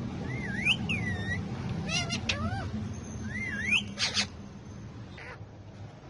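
Ringneck parakeets calling: whistled notes that swoop up and down, twice, with short harsh squawks about two and four seconds in.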